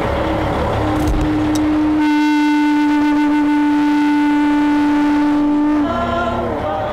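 Long, steady horn blasts. Two or more held pitches sound together for about four seconds, then drop and bend in pitch near the end before sounding again. In the first two seconds they sit over the low rumble of an idling truck engine.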